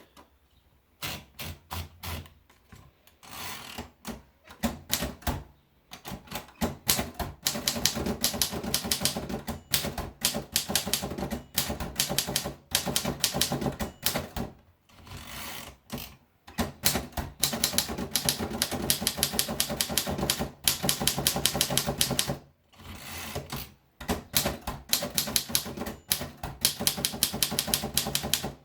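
Royal Portable Model O manual typewriter being typed on: rapid key strikes in runs lasting several seconds, broken by a few short pauses.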